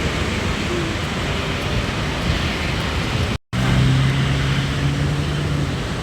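Steady rushing background noise, like traffic or wind, in two stretches split by a brief cut a little over halfway; the second stretch carries a steady low hum.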